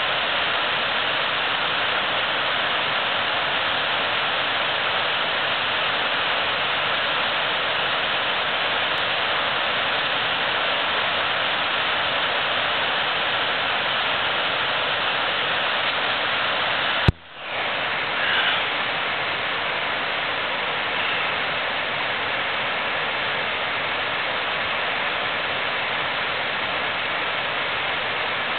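Steady rush of river water flowing over rapids, an even hiss without pause; it cuts out for an instant with a click about two-thirds of the way through, then carries on unchanged.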